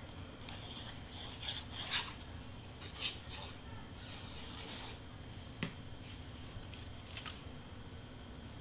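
Cardstock being lifted, rubbed and pressed down by hand: soft scattered rustles and scrapes, with a sharp tap a little past the middle and a fainter one later.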